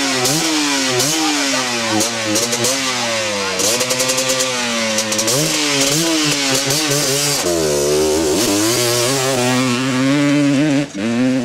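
Yamaha Raptor 660 quad's engine running, its pitch rising and falling again and again as the throttle is blipped. Near the end it revs up as the quad pulls away.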